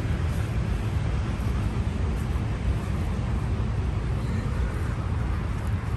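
Steady outdoor rumble and hiss of wind buffeting the phone's microphone, heaviest in the low end, with no barks or other distinct sounds.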